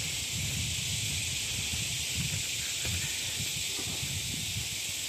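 Insects droning in a steady, high, even hiss, over low, uneven rumbling on the phone's microphone.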